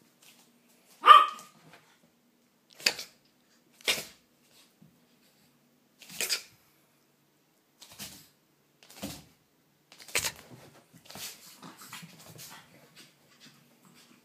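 Chihuahua puppies barking in play: short single barks every second or two, the loudest and highest about a second in, then a quicker run of softer small sounds near the end.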